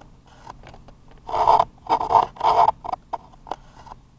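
Three short rasping scrapes in quick succession, starting a little over a second in, with a few light clicks around them.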